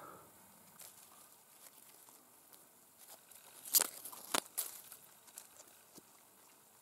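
Faint rustling of low wild blueberry bushes being handled as berries are picked, with a quick cluster of crisp snaps and crackles about four seconds in.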